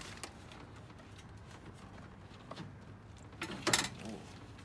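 Faint handling noises as a Mishimoto aluminium radiator is worked into a car's engine bay, with a small click near the start and a sharp knock a little over three and a half seconds in as it bumps against the mounting.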